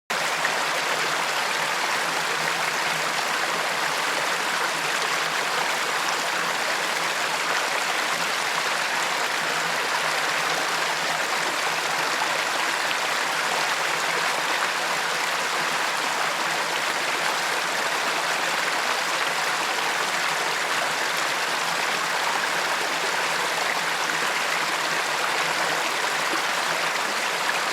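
River water flowing, a steady rushing and gurgling that never lets up.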